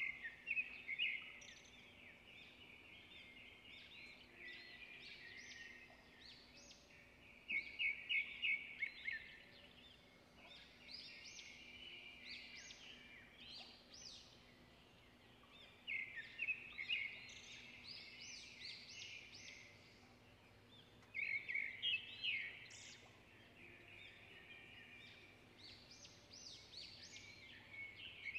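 Small birds chirping in quick trills of rapid notes, a burst every few seconds, over a faint steady low hum.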